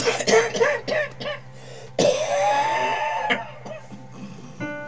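A person clearing their throat and coughing into a close microphone, starting suddenly about two seconds in. Near the end a sustained instrument chord begins.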